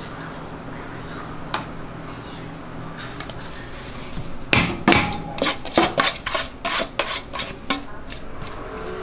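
Stainless steel mixing bowls and a metal spoon clanking: a single knock, then from about halfway through a quick run of a dozen or so clanks and knocks as one bowl of filling is tipped and emptied into another.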